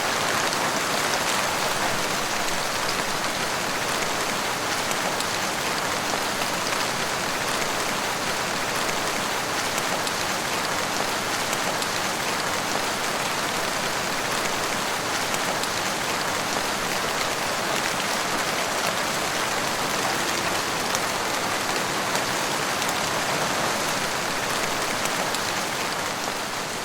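Steady, heavy rain falling on a surface, a dense even patter of raindrops that begins to fade out near the end.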